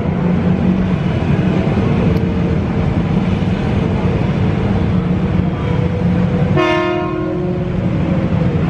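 Ex-Tokyo Metro 7000-series KRL electric commuter train rumbling steadily as it pulls in. About six and a half seconds in it sounds one short horn blast of about a second.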